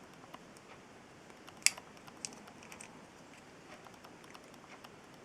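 Small plastic model-kit parts of a 1/144 High Grade Wing Gundam being handled and fitted: faint scattered clicks and taps, with one sharper plastic click about a second and a half in.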